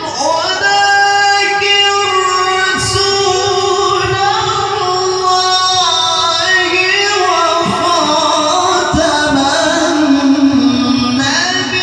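Male Quran reciter chanting in the melismatic tilawah style through a microphone and sound system, holding long notes that glide and ornament slowly in pitch.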